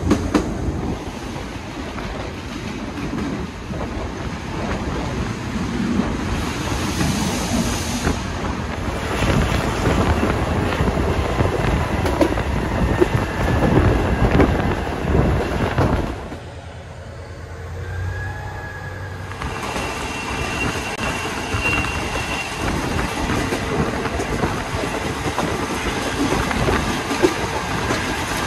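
A diesel-hauled commuter train running along the track: a continuous rumble of wheels on rail with frequent short knocks from rail joints. About two-thirds of the way through it turns briefly quieter and thinner for about three seconds, then the rumble returns.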